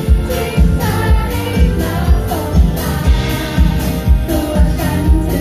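Live pop band playing with a woman singing into a microphone over electric bass guitar and a steady drum beat, the kick drum landing about twice a second.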